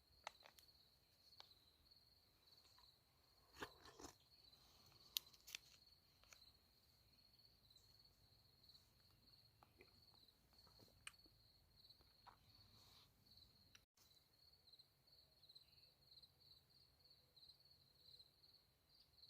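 Near silence in the woods: a steady, high-pitched insect trill with a faint low rush from the bank-full Meramec River down the hollow, and a few soft sharp clicks around four to five seconds in.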